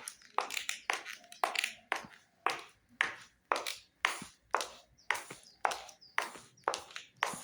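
Footsteps walking at a steady pace, about two steps a second, each a sharp strike followed by a short noisy scrape.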